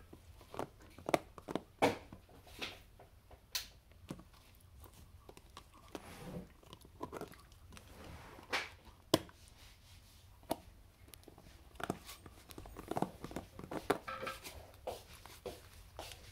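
A Patterdale terrier gnawing and pawing at a plastic peanut butter jar: irregular clicks, scrapes and knocks of teeth and claws on the plastic, a few of them sharp and loud.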